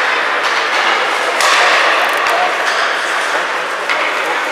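Ice hockey play in an arena: skate blades scraping and carving on the ice, with several sharp knocks and scrapes of sticks and puck, over a steady rink hum.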